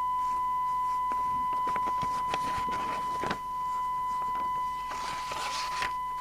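Steady 1 kHz test tone from the FM CB radio's loudspeaker as it receives an S9 test signal while the detector coil is being tuned, with scattered clicks and a burst of scratchy hiss about five seconds in.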